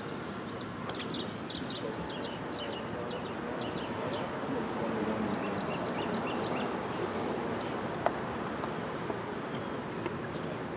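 A croquet mallet strikes a ball once, a single sharp click about eight seconds in. It sounds over a steady outdoor background, with birds chirping through the first part.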